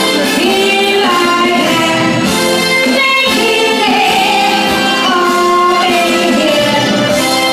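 A female vocalist singing a song live with musical accompaniment, holding long notes.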